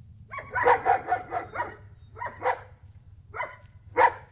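Rhodesian Ridgeback barking: a quick run of barks about half a second in, then single barks roughly a second apart.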